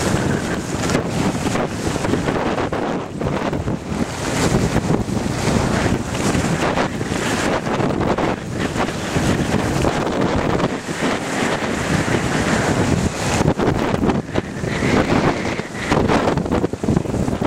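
Wind buffeting the helmet-mounted camera's microphone during a ski run downhill, a loud, rough rumble, with the scrape of skis on hard-packed snow mixed in.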